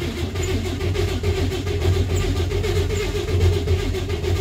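Starter motor cranking the 1963 Corvair Monza Spyder's turbocharged air-cooled flat-six, steady with a fast even chug, and the engine not catching. The car has not been started in about a year, and the owner thinks the starting fluid never reached the carburetor.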